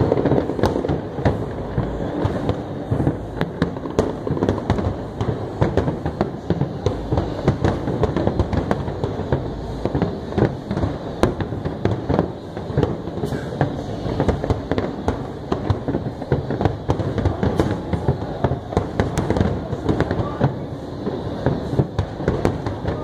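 Fireworks display: a dense, continuous barrage of overlapping bangs and crackling bursts, with no pause.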